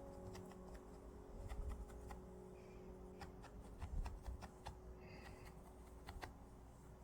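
Faint, irregular soft clicks and taps, many per second, over quiet sustained music notes that stop about six seconds in.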